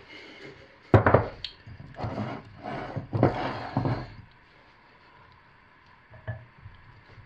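Silicone spatula scooping thick hot process soap and plopping it into a wooden loaf mold: a sharp knock about a second in, then a couple of seconds of scraping and soft thuds, and one small knock near the end.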